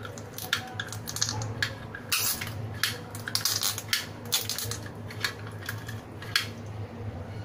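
Hand-held stainless-steel sev press being squeezed over a bowl of iced water to extrude falooda noodles: irregular light metallic clicks and ticks from the handles and plunger, a few every second, over a low steady hum.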